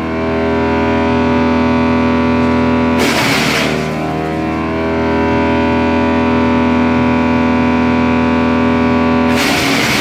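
Electric-motor-driven wood chipper running with a steady whine. A branch fed into the hopper is chipped about three seconds in and again near the end, each time with a burst of harsh chipping noise, and the machine's pitch sags slightly under the load.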